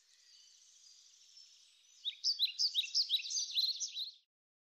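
Small birds chirping: faint at first, then about two seconds in, a quick run of short, falling chirps that cuts off suddenly near the end.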